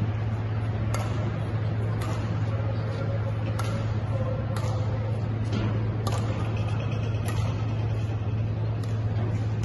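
Badminton doubles rally: rackets hitting the shuttlecock with sharp smacks about seven times, roughly once a second, over a steady low hum.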